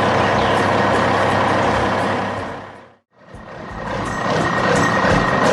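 Heavy construction-truck engine sound effects running steadily. They fade out to a brief silence about three seconds in, then fade back in with a steady high tone over them.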